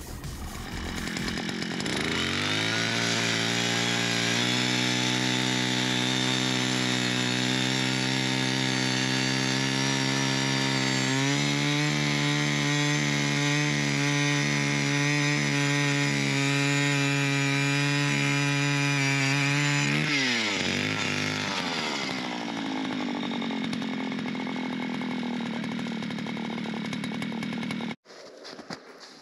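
A small petrol engine revs up and holds at high, steady revs. About a third of the way through its note turns rough and pulsing, as if under load. About two-thirds through it falls back and runs lower until the sound stops abruptly near the end.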